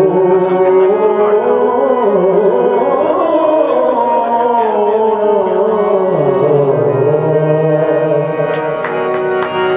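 Male voice singing a Punjabi Sufi kalaam in a wavering, ornamented melody over harmonium chords. Quick tabla strokes come in near the end.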